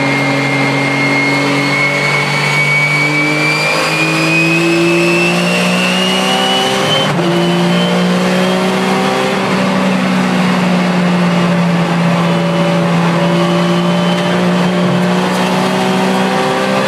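Porsche 996 Cup car's flat-six engine heard from inside the cabin under acceleration, rising in pitch. An upshift about seven seconds in drops the pitch sharply, then it climbs slowly again.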